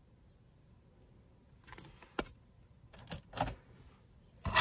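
A few light clicks and knocks, then metal costume jewelry rattling and clinking against itself in a wooden box near the end, as a hand rummages for the next piece.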